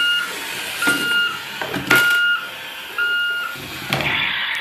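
Electronic beeper of a toy tow truck, a steady beep repeating about once a second like a reversing alarm, with a few sharp clicks of plastic handling in between.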